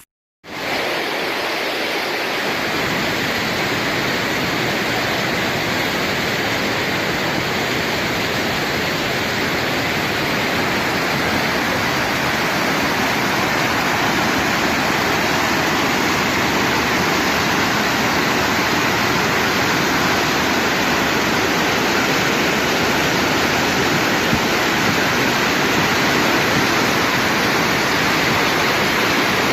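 Loud, steady rush of storm water from heavy tropical-storm rain and flooding, cutting in abruptly about half a second in and holding even throughout.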